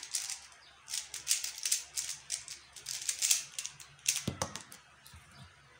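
QiYi X-Man Tornado V1 3x3 speedcube turned rapidly by hand: fast runs of light plastic clicks and clacks from the layer turns. About four seconds in come two heavier knocks, and the turning thins out and stops about a second later.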